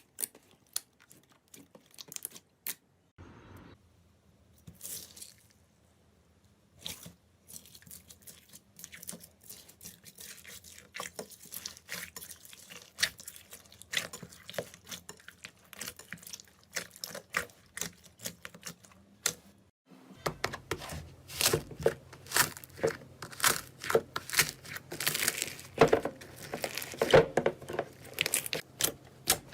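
Slime being squeezed and pulled by hand, making dense sticky clicks and crackles. About twenty seconds in, the crackling becomes louder and denser over a low steady hum.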